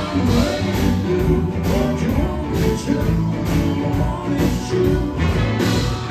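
Live blues-rock band playing, with electric guitar and bass over drums keeping a steady beat.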